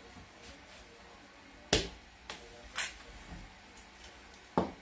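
A few sharp knocks and clicks of kitchen utensils, a rolling pin among them, against a wooden table. The loudest comes about two seconds in and another near the end.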